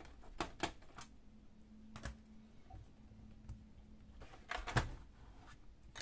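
Hands handling a laptop's plastic case, giving a few short, sharp plastic clicks and knocks: two quick ones early, one around two seconds in, and the loudest cluster near the end.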